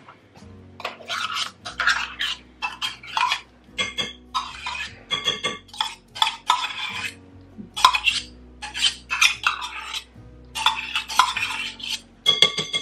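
Metal spoon scraping and tapping thick pumpkin purée out of a stainless steel measuring cup into a glass mixing bowl, in short repeated scrapes and clinks, about two a second.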